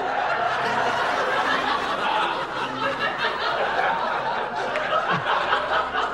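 Studio audience laughing: a long wave of laughter from many people that swells up just as it begins and holds.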